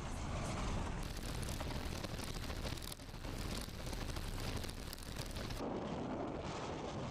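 Steady rumble of a vehicle driving over a rough gravel track, road and wind noise together, changing in character abruptly about a second in and again past the five-second mark.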